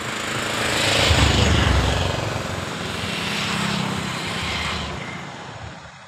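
A motor vehicle passing close by: engine and road noise swell to a peak about a second and a half in, then fade away.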